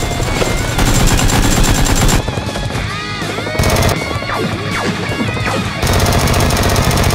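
Automatic machine-gun fire sound effects in two long rapid bursts, about a second in and near the end, with falling whistling tones between them, over background music.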